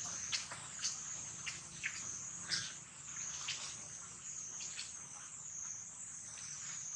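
Steady high-pitched insect drone, with short sharp chirps every half second to a second over the first five seconds.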